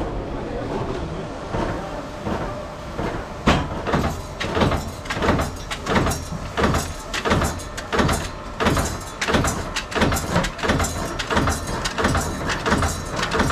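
Train running: a steady rumble, then, from about three and a half seconds in, a regular beat of sharp knocks about two to two and a half a second that quickens slightly.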